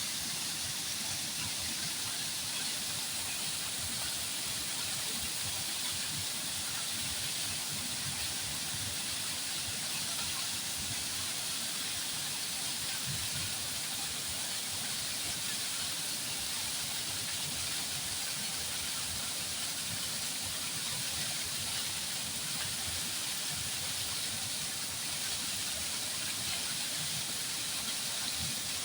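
Flowing water rushing steadily, an even hiss with no breaks or changes.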